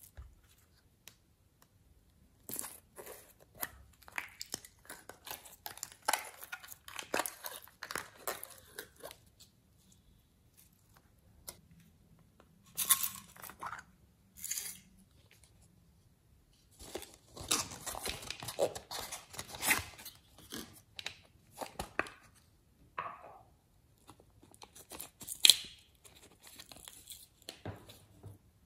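Hands working sticky slime in a plastic bowl: dense spells of crackling and popping clicks, with short quiet pauses between them; the sharpest snap comes a little before the end.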